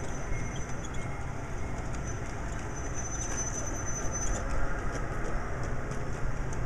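Large-scale garden model train running on outdoor track in the distance, a steady low rumble and running noise; a thin high whine shows briefly in the middle.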